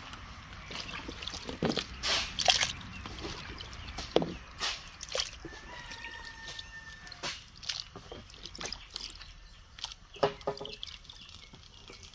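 Diced pumpkin pieces dropped by hand from a plastic bowl into a pot of soup liquid, with irregular splashes and plops. The splashes are loudest about two seconds in and thin out near the end.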